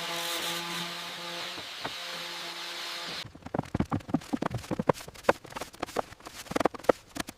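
A power tool's motor running steadily for about three seconds, then cutting off suddenly, followed by a string of irregular wooden knocks and clatter.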